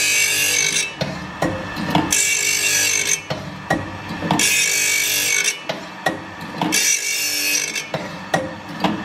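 Carbide-tipped circular saw blade being ground tooth by tooth on an OSW-5M saw-blade sharpener. A hissing grind lasting about a second repeats four times, roughly every two seconds, with short mechanical knocks between the passes. The tips are badly chipped, so each tooth's flank is being ground back heavily.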